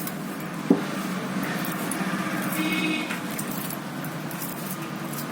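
Steady street traffic noise with a short vehicle horn toot about two and a half seconds in, and one sharp metallic click near the start.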